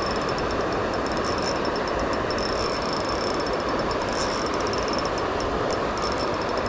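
Steady rush of flowing stream water, with faint high ticking over it.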